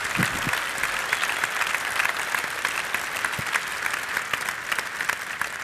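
Audience applauding: a dense patter of many hands clapping, which thins out near the end.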